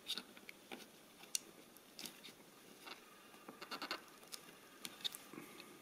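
Faint small plastic clicks and taps of fingers handling red JST wire connectors and pressing them into a 3D-printed plastic housing, with a quick run of ticks a little past halfway.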